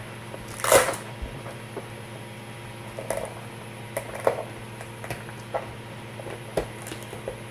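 Hands handling a Raspberry Pi's clear plastic case, its strap and cables on a wooden board: scattered light clicks and knocks, with a louder brief scrape just under a second in.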